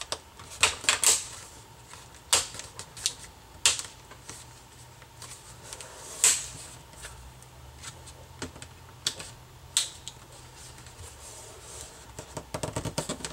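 Plastic retaining clips of a 2007 MacBook's display bezel snapping into place as the bezel is pressed back onto the screen. Sharp, irregular clicks and snaps, with a quick run of them near the end.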